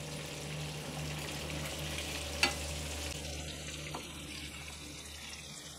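Rohu fish steaks sizzling as they shallow-fry in hot oil in a nonstick pan, being turned over with a slotted spoon and a spatula. A light click of utensil on pan comes about two and a half seconds in.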